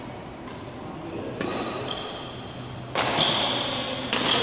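Badminton rackets striking a shuttlecock in a rally: about four sharp hits, roughly one and a half seconds apart, the loudest about three seconds in. Each hit rings in the large hall, and short high squeaks follow the later hits.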